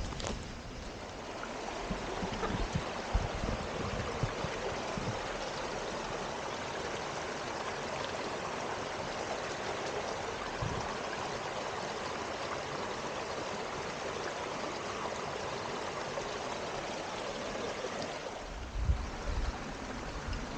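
Mountain stream running: a steady, even rush of flowing water, with a few low thumps near the end.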